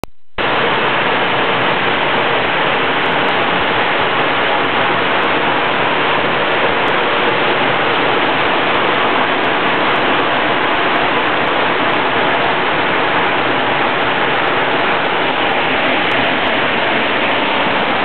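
Steady rushing of Rhaeadr Dyserth, a 70-foot waterfall, with water falling continuously.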